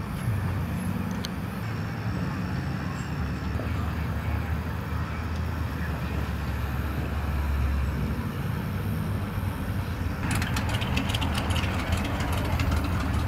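Steady low machinery hum from the street fair's rides, with a run of sharp clicks and taps about ten seconds in.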